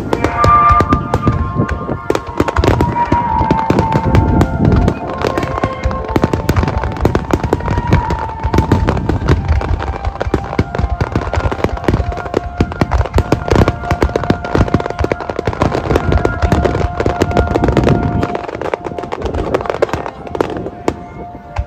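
A dense barrage of fireworks shells bursting and crackling in rapid succession, with music playing underneath in long held notes. The bursts thin out somewhat near the end.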